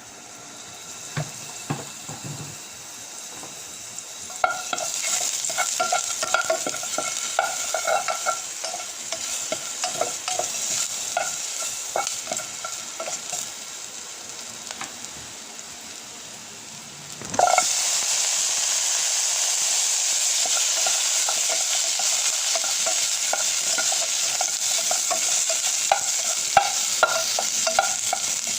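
Food frying and sizzling in a hot pan while a utensil stirs it, scraping and clinking against the pan again and again. A little past halfway the sizzle suddenly grows louder and stays that way.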